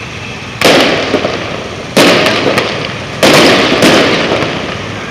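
Fireworks going off in three sudden loud bursts a little over a second apart, each a dense crackle that fades over about a second.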